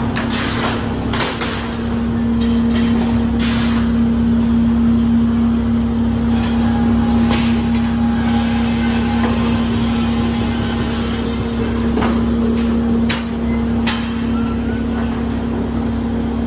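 Sawmill machinery running with a steady hum. Boards and slabs knock and clatter now and then on the chain transfer decks.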